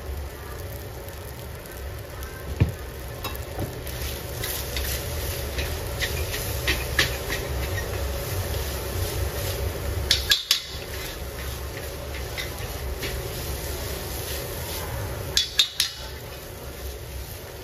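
Metal spatula scraping and turning fried rice in an iron wok, with a steady frying sizzle over a low rumble. Two quick clusters of sharp clanks of the spatula against the wok, about ten and fifteen seconds in, are the loudest sounds.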